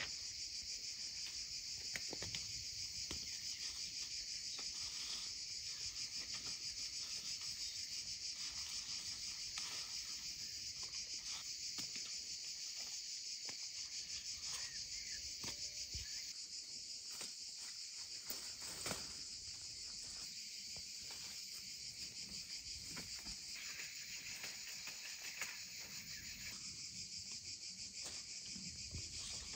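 A steady, high-pitched chorus of insects chirring without a break, with scattered light rustles and snaps of leaves and bean pods being handled and picked.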